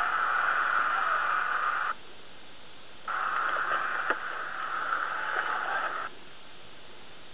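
Static hiss that cuts out abruptly just under two seconds in, comes back about a second later with a few faint clicks, and cuts out again about six seconds in.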